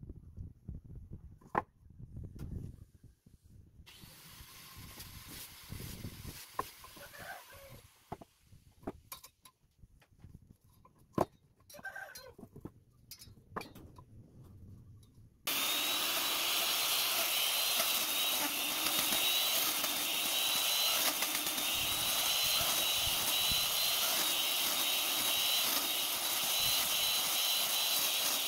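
Scattered light taps and clicks of hand marking-out on a palm-wood beam. About halfway through, a handheld electric router starts suddenly and runs steadily with a high whine as it cuts into the wood.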